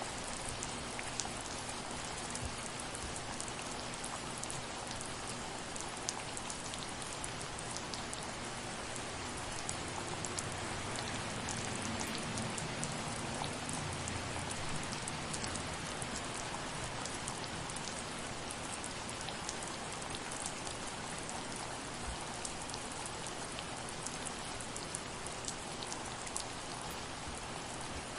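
Steady soft rain, a dense even hiss with many individual drops ticking through it. A faint low rumble swells slightly around the middle.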